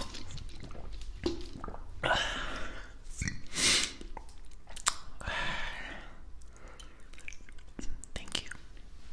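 Close-up mouth sounds into a binaural microphone just after a drink of water: swallowing, lip smacks and wet clicks, with three breathy rushes of air at about two, three and a half and five seconds in.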